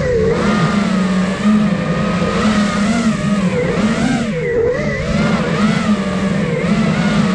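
The four brushless motors and propellers of an iFlight Nazgul Evoque F5 HD 5-inch FPV quadcopter, heard from the camera on board, whining in a stack of pitches that rise and fall together with the throttle, with a brief drop in pitch about four and a half seconds in.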